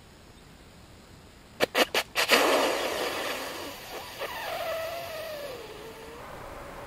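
Deer snort-wheeze call: a few short sharp puffs of air about a second and a half in, then a long drawn-out hiss that fades away. A faint drawn-out tone slides down in pitch after it.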